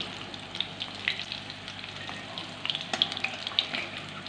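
Battered chicken pieces deep-frying in hot oil in a steel wok, a steady sizzle full of small crackling pops, while they are scooped out with a slotted metal spoon. A cluster of sharper pops and clicks comes about three seconds in.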